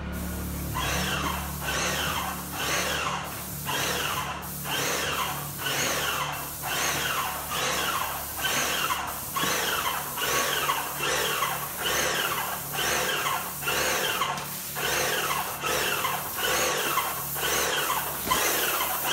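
Airless paint sprayer's pump cycling in a steady rhythm of about two strokes a second, each stroke a rising whine. A steady low hum from the RV generators powering it runs underneath.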